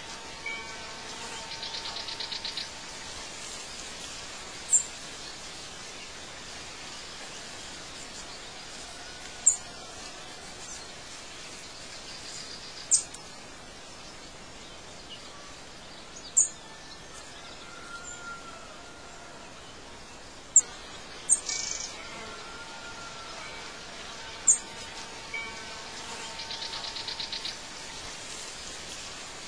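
Birds chirping over a steady outdoor background: a short, sharp, high chirp every three to five seconds, a few short whistled calls, and a rhythmic buzzing trill about a second in and again near the end.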